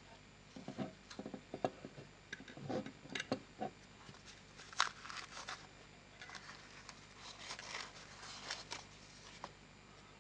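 Handling noise from the metal parts of a low-temperature Stirling engine kit and its foam packing: scattered light clicks, taps and short scrapes as the base plate is lifted off the foam and turned over in the hands.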